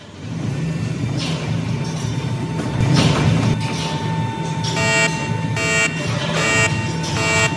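Stationary waste compactor sound effect: a steady low machine hum as the ram compacts the load, with a couple of brief whooshes. Near the end, four electronic beeps about a second apart sound the full-bin alert.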